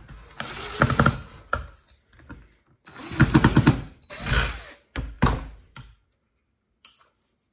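Cordless impact driver running against a wooden board in several short bursts, each a fast rattling clatter.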